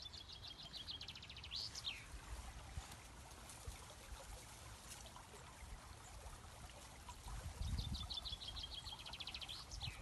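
A small songbird singing twice, each song a quick run of repeated high notes ending in a short flourish, over the faint trickle of a shallow stream. A low rumble comes in alongside the second song.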